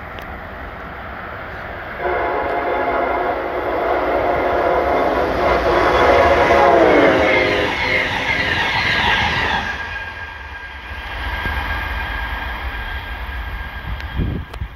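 Amtrak Keystone Service train sounding its Nathan K5LA five-chime horn in a loud, sustained chord as it approaches at speed, starting about two seconds in; the chord drops in pitch as the train passes, about seven seconds in. The horn stops near ten seconds, and the passenger cars rush past with rail clatter.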